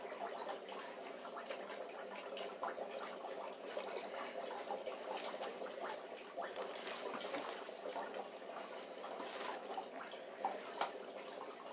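Water trickling and dripping steadily, with many small irregular splashes.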